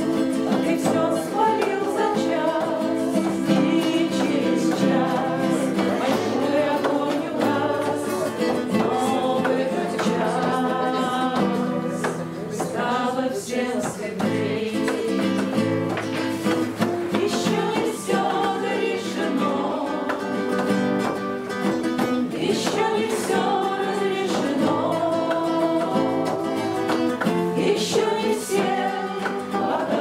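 Several voices singing a song together, accompanied by an acoustic guitar.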